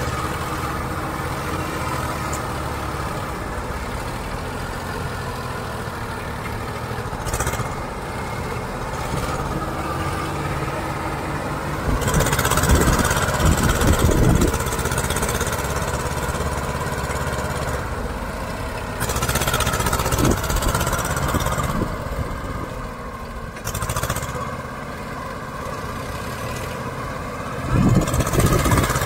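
Diesel tractor engines working under load in deep mud: a Mahindra 255 two-wheel-drive tractor's two-cylinder engine and a Sonalika DI-740's three-cylinder engine straining to pull an overloaded trolley that is stuck. They run steadily and rev up louder about twelve seconds in, again around nineteen seconds, and near the end.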